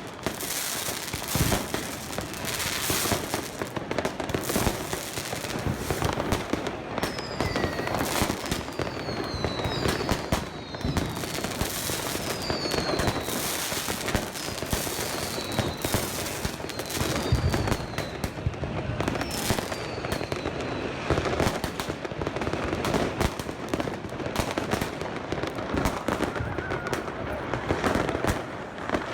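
New Year's Eve fireworks going off continuously on all sides: a dense run of bangs and firecracker crackle. Several short falling whistles cut through it in the middle of the stretch.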